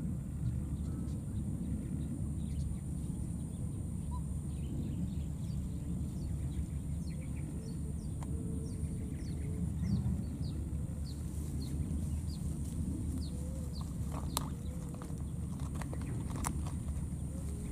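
Outdoor ambience dominated by a steady low rumble of wind on the microphone, with faint short high chirps through the middle and a few sharp clicks near the end.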